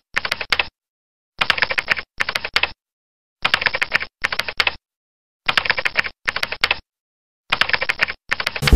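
Typing sound effect: quick runs of key clicks in pairs of short bursts, a pair about every two seconds, with dead silence between.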